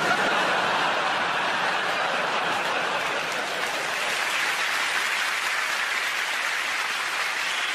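Large theatre audience applauding and laughing, breaking out suddenly and holding steady.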